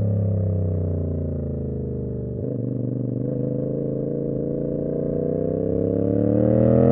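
Tuned CFMoto 450SS parallel-twin motorcycle engine: revs drop off the throttle, the note changes about two and a half seconds in, then revs climb again near the end as the bike accelerates.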